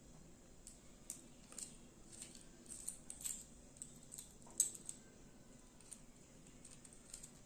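Scattered faint clicks and light metallic rattles of small scope-mount parts being handled, the sharpest about four and a half seconds in.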